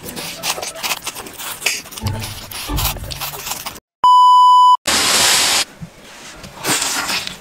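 Noodles being slurped and chewed, then a sudden loud, steady test-tone beep of under a second, the tone that goes with TV colour bars. A short burst of static hiss follows.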